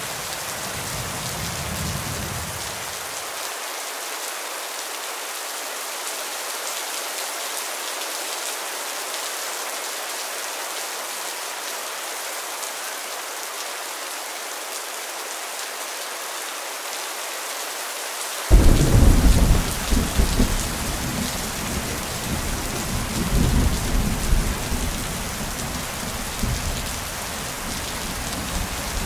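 Rain falling steadily on the broad leaves of breadfruit trees. About two-thirds of the way through, a loud low rumble of thunder breaks in suddenly and rolls on in uneven waves.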